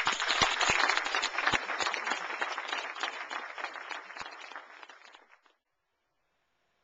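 Congregation applauding, loudest at first and dying away about five seconds in.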